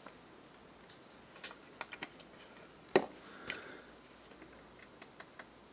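Light scattered clicks and taps of paint bottles and brush being handled while acrylic paints are mixed on a palette, with one sharper click about three seconds in and a brief soft rustle just after.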